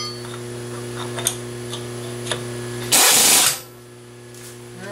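A brief loud burst from a power tool about three seconds in, as the slitting saw's arbor is drawn tight into the vertical milling machine's spindle, over a steady low hum.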